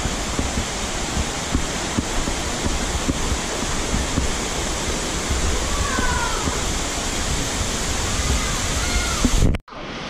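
Waterfall rushing in a steady roar, running strong with high water after heavy rain. The sound cuts off suddenly near the end.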